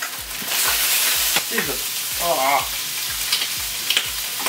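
Turkey bacon and chicken sausages sizzling and spitting hot fat in a frying pan, with the sizzle swelling louder about half a second in, and metal tongs clicking against the pan as the meat is turned.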